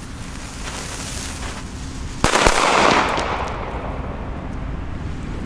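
Blackboxx Bella Bomba black-powder firecracker: its preburner fizzes and sputters for about two seconds, then it goes off with a sharp bang, a second crack right after, and echoes fading away.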